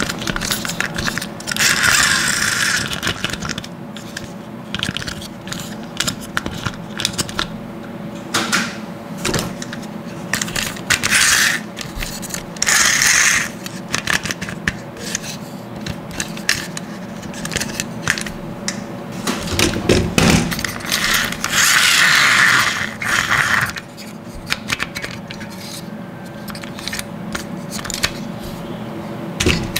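Plastic toy monster trucks handled in the hands: clicks and clatter of hard plastic bodies, suspension and wheels, with several louder scraping rattles of a second or two. A faint steady hum runs underneath.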